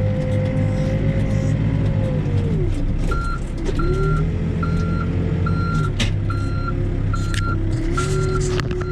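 Four-wheel-drive backhoe's diesel engine running under load with a whine that sags about three seconds in and then climbs again. From about three seconds in, a backup alarm beeps steadily, about one and a half beeps a second. A few sharp metallic clanks come near the end.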